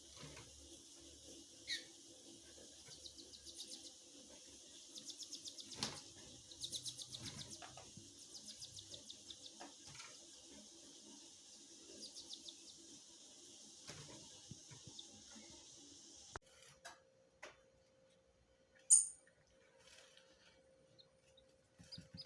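Young double-collared seedeater (coleiro) calling: short runs of rapid high chirps over a steady hiss, then after an abrupt change in the background, one loud sharp chirp.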